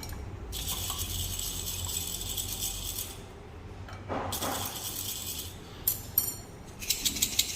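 Whole coffee beans rattling as they are shaken in a small dosing cup after a light RDT water spritz, in two spells of two to three seconds each. Near the end come a run of sharper clicks and ticks.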